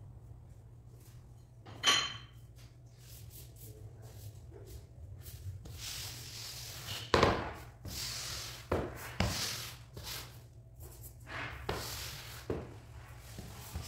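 Rubber-bladed floor squeegee pushing sawdust across polished porcelain floor tiles, a run of irregular scraping strokes from about five seconds in, after one sharp clack about two seconds in. The sawdust is being swept off the freshly grouted tiles to clean them.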